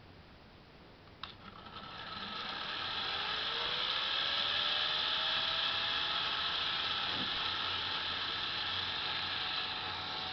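A click about a second in, then two LEGO Power Functions XL motors and plastic Technic gears whir as they spin a gyroscope wheel up to speed. The whir builds over a few seconds with a faint rising whine, then runs steadily.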